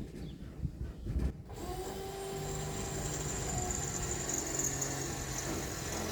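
Power drill running steadily with a 1/4-inch bit, boring a bolt hole for a mounting bracket, starting about a second and a half in after a few knocks.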